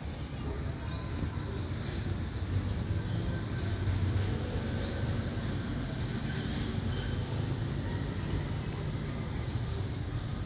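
Outdoor ambience dominated by a steady, high-pitched insect drone, over a low rumble, with a few short rising chirps about a second in and again around five seconds.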